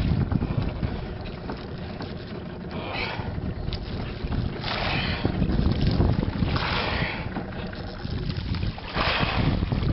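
Wind rumbling on the microphone aboard a small boat at sea, with a short hissing rush about every two seconds.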